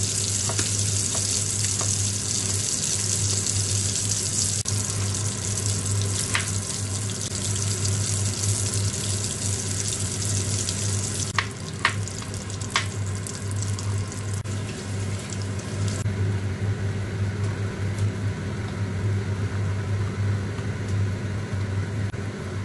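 Egg-white and cornstarch coated king crab legs frying in hot oil in a pan: a steady sizzle over a low hum, easing somewhat about two-thirds of the way through. A few knife taps on a wooden cutting board come around the middle.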